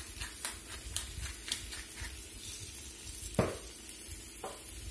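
Hand-held pepper grinder clicking in quick short strokes over a skillet during the first couple of seconds. A louder knock comes about three and a half seconds in and a lighter one near the end. Under it all is a low steady hiss from the pan of beef broth and mushroom soup heating toward a simmer.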